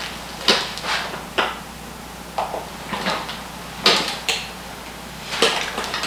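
Handling noise: a string of light knocks, taps and clatters at irregular intervals as a wooden flute and other things are picked up and moved about beside a chair.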